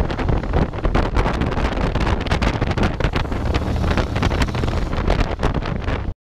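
Heavy wind buffeting on a handlebar-mounted action camera's microphone while riding a Honda X-ADV scooter at road speed, with its engine running underneath. The sound cuts off abruptly near the end.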